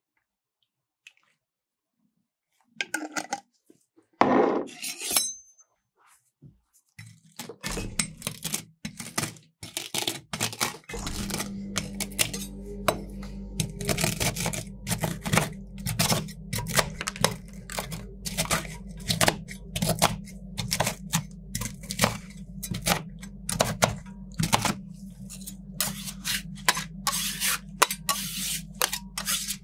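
Metal spatulas clacking and scraping on a frozen steel ice-cream plate, rapidly chopping and crushing Takis tortilla chips, over a steady low hum that starts about seven seconds in. A brief rustle comes before the chopping begins.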